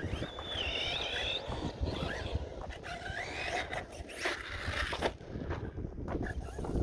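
Arrma Outcast RC car's Surpass Hobby brushless motor whining, its pitch rising and falling with the throttle, once near the start and again around three seconds in, with tyres scrabbling over gravel.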